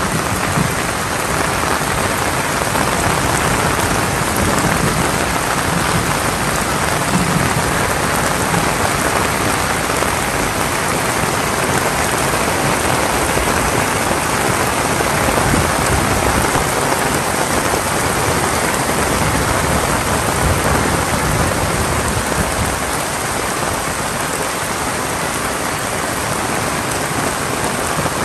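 Heavy rain pouring steadily, a loud, even hiss with no letup.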